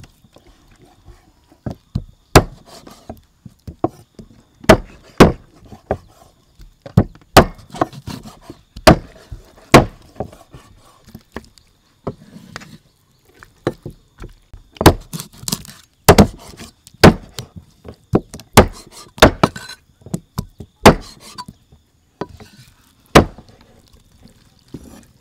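Cleaver chopping raw chicken wings on a thick wooden chopping block: sharp, irregular strikes roughly one a second, with a pause of a few seconds about halfway through.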